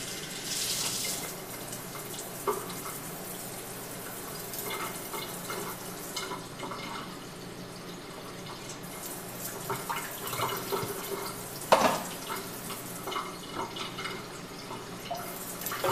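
Kitchen tap running into a stainless-steel sink as a shofar is rinsed out under it, with splashing and dripping. There is one sharp knock late on.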